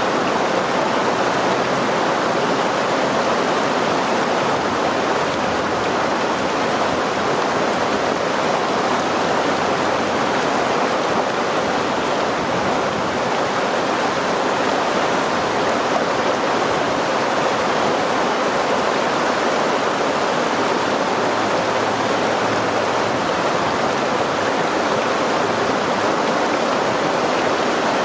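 Stream water rushing and burbling over rocks, a steady even flow.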